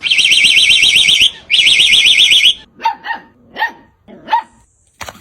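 An electronic alarm sounding a high, fast warble in two long bursts, then a small dog giving several short, high barks.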